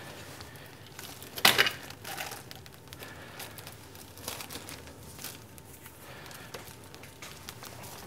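Coiled plastic pneumatic tubing being handled, rustling and crinkling irregularly, with one louder rustle about a second and a half in.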